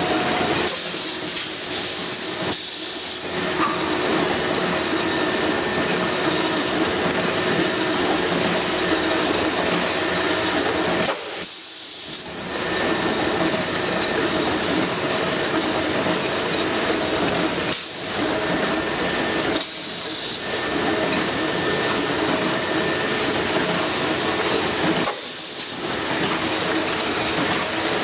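Semi-automatic aerosol can filling line running: steady machine clatter and hum, with short hisses of air several times.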